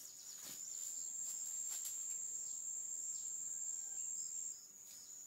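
Insects chirring in one steady high-pitched note, with a few faint bird chirps and light scattered rustles.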